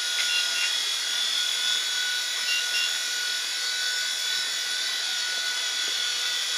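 Small electric RC helicopter's motor and rotor whining steadily as it hovers. It is flying sluggishly and surging at high throttle, which the fliers put down to a weak battery or a failing motor.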